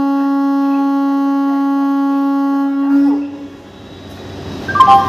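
A train horn sounding one long, steady note that stops about three and a half seconds in. Short musical tones start near the end.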